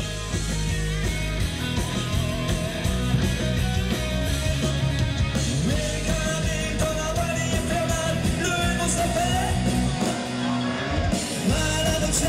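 Live dance band playing a rock-style song through a PA: a singer over drums and bass, with the drums and bass cutting out for about a second near the end.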